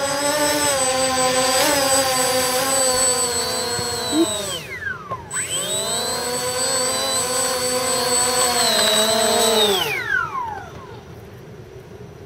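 Foam-board tricopter's electric motors and propellers whining steadily, dropping almost to nothing about five seconds in as the throttle is cut, spooling back up, then winding down and stopping near the end.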